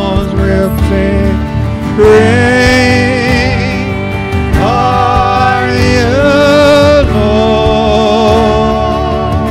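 A woman singing long held notes with a slight waver into a microphone, backed by a worship band with electric guitar.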